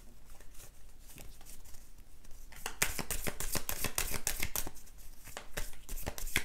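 A deck of oracle cards being shuffled by hand: a few faint card sounds at first, then a fast run of card flicks and snaps from about two and a half seconds in.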